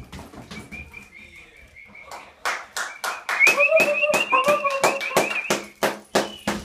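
A dog whining with excitement in a high, wavering tone, louder and more insistent from about halfway. A fast run of sharp taps and clicks goes with it through the second half.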